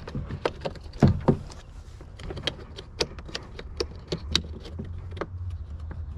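Irregular plastic clicks and knocks from a replacement passenger window switch and door trim being pushed and snapped into the switch's white base and panel clips in a 4th-gen Toyota 4Runner door.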